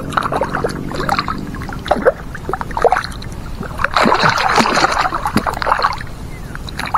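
Hooked barracuda thrashing and splashing at the surface beside the boat, with repeated splashes and a longer, louder stretch of splashing about four seconds in.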